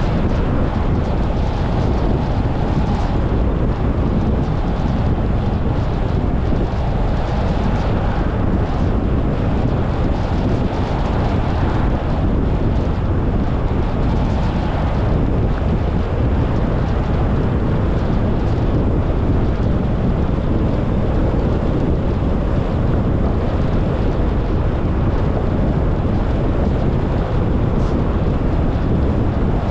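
Steady rush of wind and road noise from a moving car, with wind buffeting the microphone and a deep rumble underneath.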